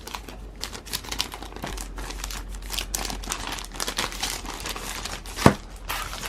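Packaging from a photobook set crinkling and rustling as it is handled, in a run of irregular crackles, with one sharp knock about five and a half seconds in.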